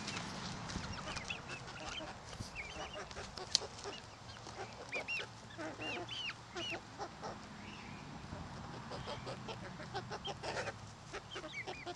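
A small flock of chickens foraging: young chicks peeping in many short calls that rise and fall in pitch, with low clucks from grown hens in among them.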